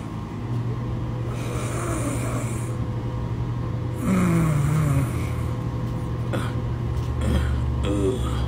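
Sleeping dog snoring, with two long raspy breaths, the second ending in a falling groan, over a steady low hum; a few short stirring sounds near the end.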